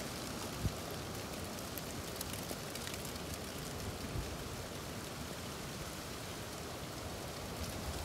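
Strong wind blowing: a steady, even rushing hiss with faint scattered ticks.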